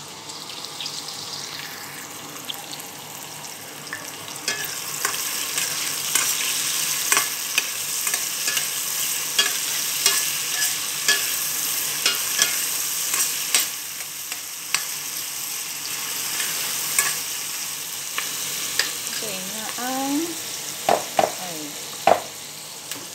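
Sliced onions sizzling in hot oil in a stainless steel pot while a spoon stirs them, clicking against the pot. The sizzle grows louder about four seconds in, and a few louder knocks come near the end.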